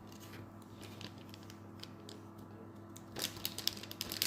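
Faint handling sounds of small plastic toy parts: scattered light clicks, turning into a busier run of clicks and crinkles about three seconds in.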